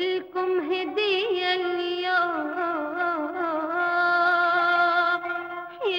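A woman singing an Arabic song in long held notes with wavering ornaments, pausing briefly near the end before the next phrase begins with a falling glide.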